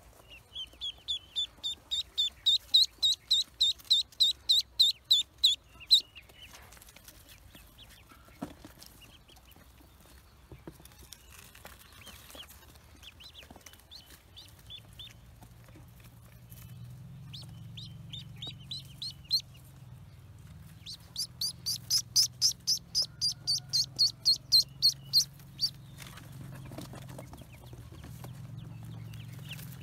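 Ducklings peeping: fast runs of loud, high peeps, about three or four a second, in a long run at the start, a short run about two-thirds through and another long run soon after, with softer scattered peeps between.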